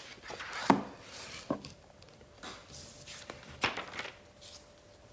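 A picture book being closed and set down flat on a tabletop: a few sharp taps and knocks of the book and hands against the table, the loudest about a second in, with brief paper rustling between.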